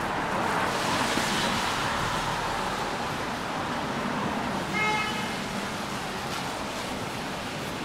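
Street traffic noise: a steady hiss of passing cars, with one short car horn toot about five seconds in.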